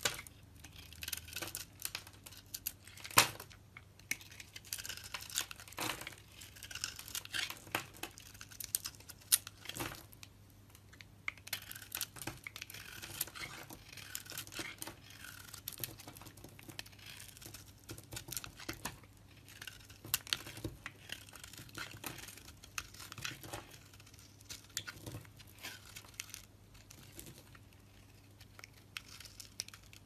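Utility-knife blade carving into a bar of soap: repeated short scraping and crackling strokes as flakes and shavings come off, with a sharp click about three seconds in.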